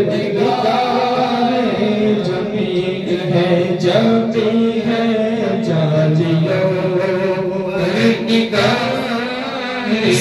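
Men's voices chanting an Urdu devotional naat into microphones, held and bending through long sung phrases.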